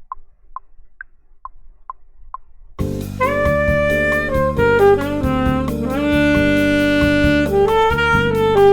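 Count-in clicks, about two a second with every fourth one higher, then about three seconds in a jazz backing track with bass and chords starts and a saxophone plays held notes over it.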